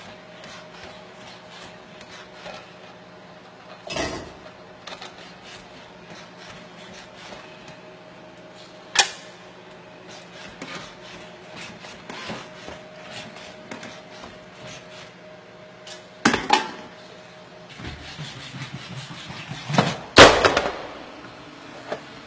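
Boston Dynamics SpotMini quadruped robot's motors humming steadily as its arm handles dishes, with sharp clinks of glass and crockery about 4, 9 and 16 seconds in. Near the end a loud clattering crash as the robot slips and falls to the floor.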